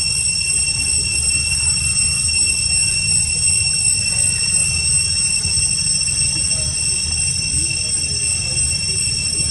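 Forest insects droning in a steady, unbroken, high-pitched chorus, over a constant low rumble.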